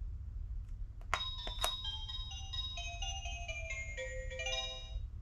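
Clementoni Baby Smartphone toy playing a short electronic jingle of beeping notes that step mostly downward in pitch, after two clicks about a second in.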